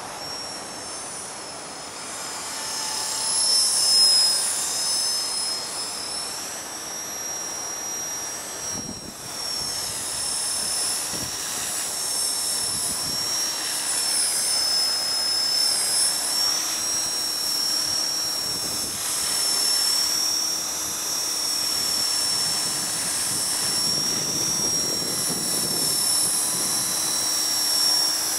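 HK-450 electric RC helicopter flying, its motor and rotor giving a high-pitched whine that wavers in pitch as it works against strong wind. Gusts of wind noise come and go underneath.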